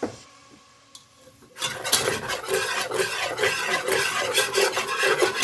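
Wire whisk stirring and scraping flour into oil in a pot for a roux: quick scratchy strokes against the pot, starting about a second and a half in.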